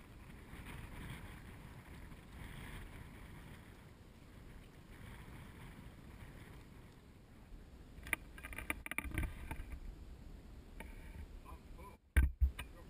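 Water lapping and sloshing against the hull of a plywood canoe as it is paddled, in swells every second or two. About eight seconds in comes a run of sharp knocks and splashes, and just before the end a brief cut-out followed by a loud thump.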